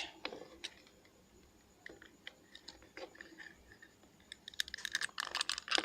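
Plastic computer-mouse shell being handled and its top cover fitted on: a few light clicks, then a dense run of plastic clicking and scraping near the end.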